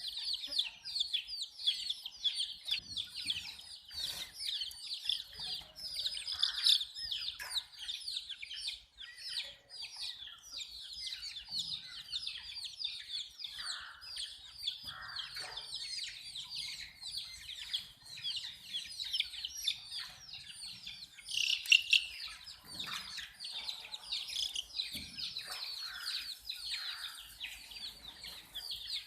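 A flock of baby chicks peeping continuously: many short, high, overlapping chirps, with a few lower calls mixed in.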